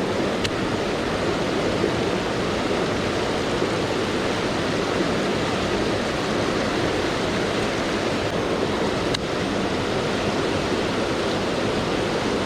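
Steady rushing of a mountain stream flowing after rain, with two faint clicks, one near the start and one about nine seconds in.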